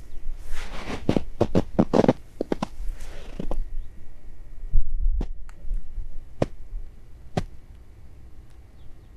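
Snow crunching underfoot in a quick run of compressing crunches for about the first three and a half seconds. After that come about four sharp, isolated clicks spread over the next few seconds.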